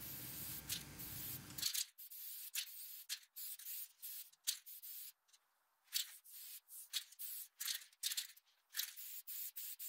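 Aerosol spray can of gloss clear coat hissing in short repeated bursts, more than a dozen quick passes over a guitar neck.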